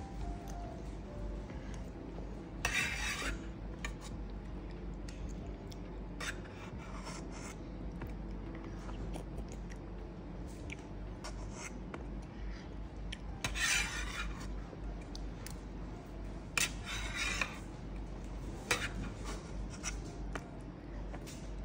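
Small metal spoon scraping and clinking against a stainless steel divided food tray as a child scoops food: several short scrapes a few seconds apart, with light clicks between them.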